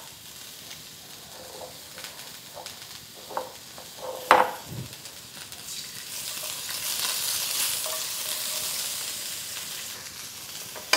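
Broccoli and carrots sizzling in hot fat in a carbon steel wok as they are stirred with a silicone spatula. The steady sizzle swells in the middle, with a few light ticks and one sharp knock about four seconds in.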